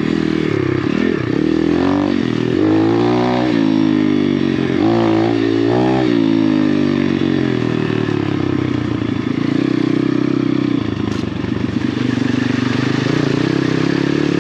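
Apollo RFZ 125cc dirt bike's single-cylinder four-stroke engine under load. It revs up and down several times with the throttle over the first six seconds or so, then holds a steadier pitch.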